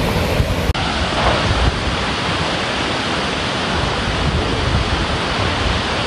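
Steady rushing of Coban Sriti, a tall plunging waterfall, with a low fluctuating rumble of wind on the microphone underneath.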